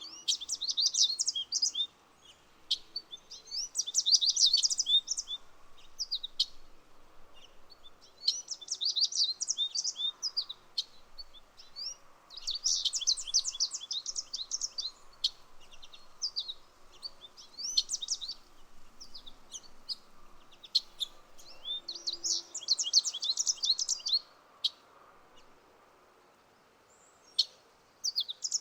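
Birds singing: bright, rapid twittering song phrases of a second or two, repeating every few seconds, with single chirps in between over a faint steady background hum.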